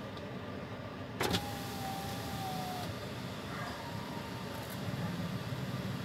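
Ford Ranger's electric power window being lowered: a click as the motor starts, then a steady motor whine for about a second and a half. A second, fainter whine follows about two seconds later.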